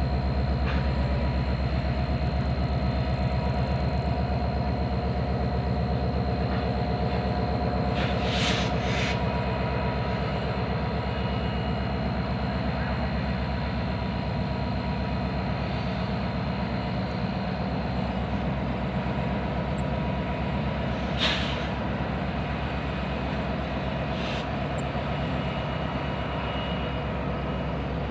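Several Canadian Pacific diesel locomotives moving slowly past with a steady, pulsing engine drone. A high whine runs through the first part and stops a little past the middle. There are a few short hisses, once about a third of the way in and twice in the second half.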